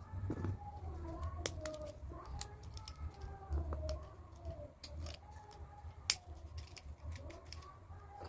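Scattered plastic clicks and snaps of toy excavator parts being fitted together, the loudest about six seconds in. Birds call in the background throughout.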